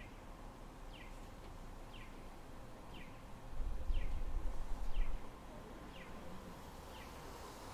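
A short high chirp, falling in pitch, repeated evenly about once a second over a faint steady hum. A low rumble swells for about a second and a half around the middle.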